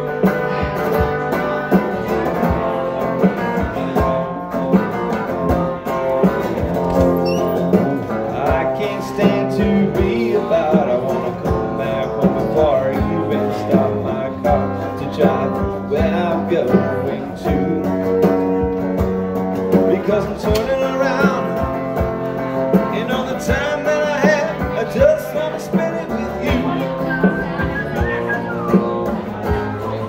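Live instrumental break of a country-blues style song: an electric guitar plays a lead line with wavering, bending notes over a held bass part and a steady beat.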